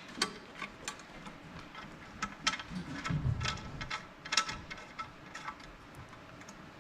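Irregular metal clicks and taps, about two a second, of an L-shaped hex key being turned and reset in screw heads as the screws are tightened down, with a short duller rub about halfway through.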